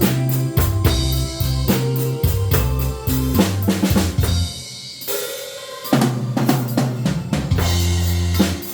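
Live band music: a drum kit keeping a steady beat on snare and bass drum with cymbals, over keyboard chords and a bass line. About halfway through, the music thins out and drops in level for a second or so before the full beat returns.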